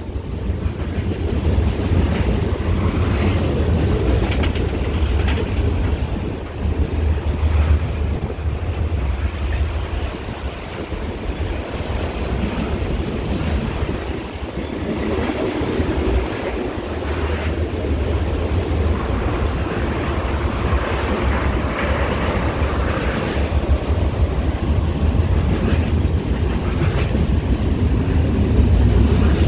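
Union Pacific freight train's cars rolling past directly below: a loud, steady rumble of steel wheels on rail with clicking over the rail joints.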